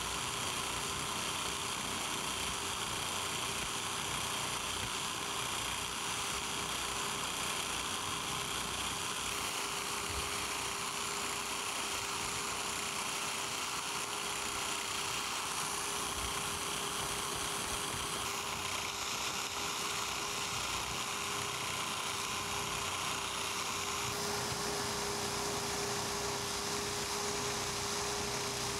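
Biax electric power scraper running steadily as its blade strokes rapidly over a cast iron machine way, with a constant hum. This is step scraping: metal is being taken off to bring one end of a boring mill saddle down to a plane.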